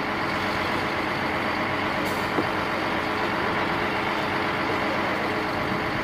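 Mercedes-Benz concrete mixer truck's diesel engine running steadily, with a brief high hiss about two seconds in.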